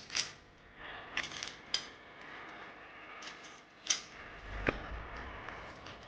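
Scattered clicks, taps and light knocks of small hard plastic and metal parts being handled during a PC build, with a sharper click and a dull low bump about two-thirds through.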